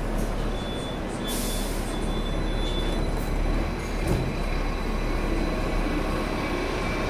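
Hong Kong double-decker trams and street traffic, heard from the tram's upper deck: a steady rumble. There is a short hiss a little over a second in, and a row of short high beeps during the first three seconds.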